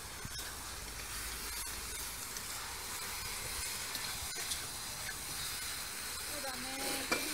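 Steady sizzling hiss of fried noodles and vegetables stir-frying in a wok over a gas wok burner, just after the sauce went in, with a few faint taps of the wooden spatula.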